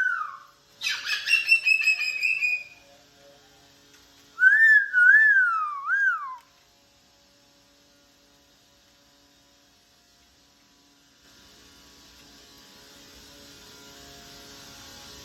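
Moluccan cockatoo calling: a harsh, raspy squawk about a second in, then a wavering, tune-like whistle that rises and falls a few times around the middle.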